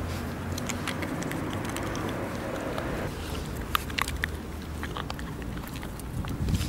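Border terrier nosing and mouthing a plastic ball on asphalt: scattered light clicks and scrapes of teeth and ball, most of them in the second half. A steady low traffic rumble runs underneath.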